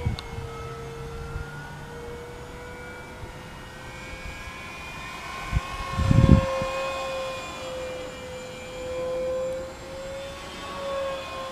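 Electric motor and propeller of an FMS Cessna 182 1.5 m RC plane in flight, a steady whine that wavers slightly in pitch, with a brief low thump about six seconds in.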